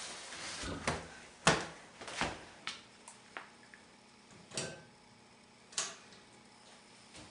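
A short rustle, then a string of irregular knocks and clicks, about eight in all, the loudest about a second and a half in.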